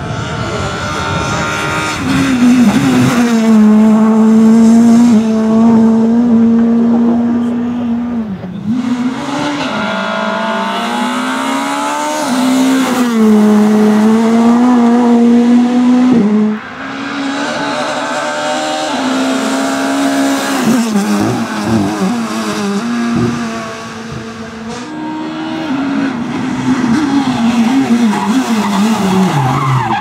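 Škoda Fabia S2000 rally car's naturally aspirated 2.0-litre four-cylinder engine held at high revs as the car passes at full stage speed, the pitch dipping briefly at each gear change and climbing again. There is a short run of sharp cracks in the last third, and the engine note rises hard again near the end.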